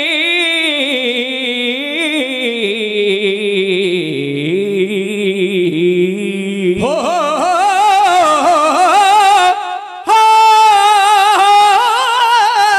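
Kavishri singers holding a long, drawn-out note in unaccompanied male voices with a wavering vibrato. The note slides slowly downward, then about seven seconds in a higher voice sweeps up and holds a new note, with a brief break near ten seconds.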